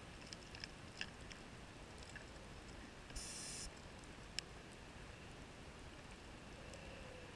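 Faint underwater reef ambience: a steady low hiss with scattered sharp clicks and snaps, and a short hiss lasting about half a second roughly three seconds in.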